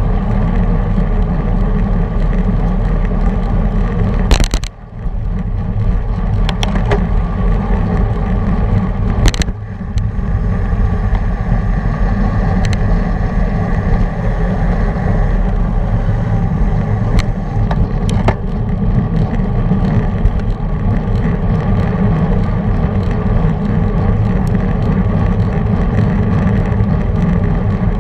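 Wind rushing over a bicycle-mounted action camera's microphone at racing speed, a steady low rumble mixed with road-bike tyre noise on asphalt. Two sharp knocks break it, about four and a half and nine and a half seconds in.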